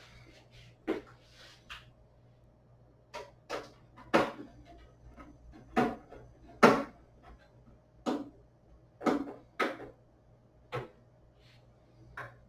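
Irregular clicks and knocks of a screwdriver and screws against a metal PC case as the motherboard is screwed down, about a dozen sharp taps spread unevenly, the loudest about two thirds of the way through.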